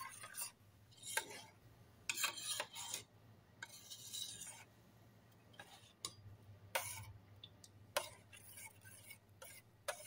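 A metal spoon stirs thick oatmeal in a stainless steel pot: irregular scrapes and light clinks as the spoon rubs the pot's bottom and sides. A faint steady low hum runs underneath.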